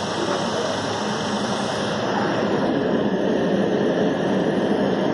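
HHO carbon cleaner machine running during an engine carbon clean, making a steady, even whooshing machine noise with no distinct rhythm or pitch.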